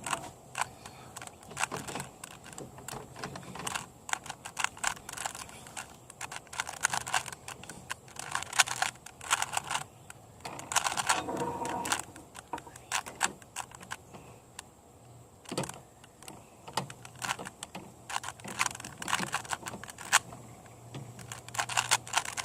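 Plastic 3x3 Rubik's Cube being turned by hand, its layers clicking and clacking in quick irregular bursts with short pauses.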